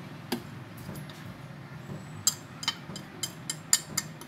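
Plastic fork clicking and scraping against a plate as sliced cheese is pushed off into a bowl: a single click near the start, then a quick run of about eight sharp clicks from about two seconds in, over a low steady hum.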